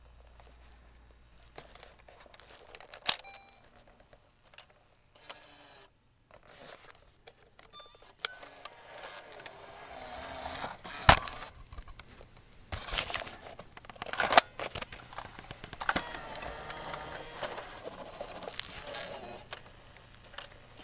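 A cassette being ejected and handled: sharp clicks and clunks from a cassette player's eject mechanism, several seconds apart, the loudest two about 11 and 14 seconds in. Between them the cassette rattles and scrapes.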